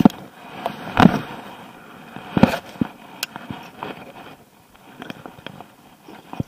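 Scattered knocks and clicks from a baitcasting rod and reel being handled and cranked in a jon boat. The loudest come about a second in and about two and a half seconds in, with lighter ticks after them.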